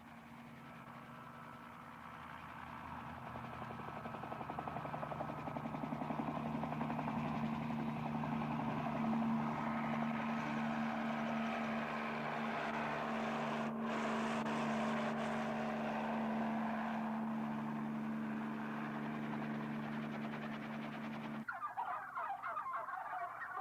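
A steady motor or engine hum with a constant pitch. It grows louder over the first several seconds, holds, and cuts off abruptly near the end. A turkey starts gobbling right after.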